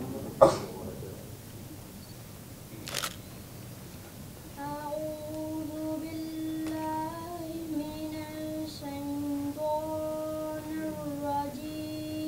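A sharp knock about half a second in and a second one around three seconds, then a child's voice singing long, steady held notes that step from pitch to pitch.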